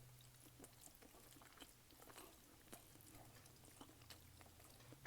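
Faint chewing and mouth sounds of someone eating rice and gravy: soft, irregular small clicks over a steady low hum.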